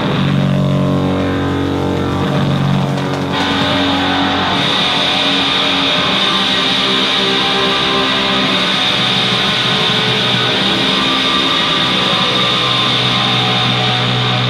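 Free-improvised noise rock: a loud, dense wall of sustained, distorted electric guitar. About three seconds in, the low held notes drop away and a harsh, high-pitched layer comes in.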